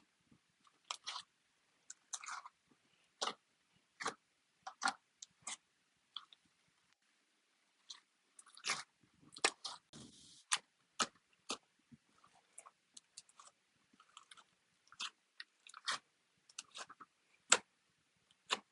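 Slime being squeezed and poked by hand, making irregular sharp clicks and pops, with a short hiss about halfway through.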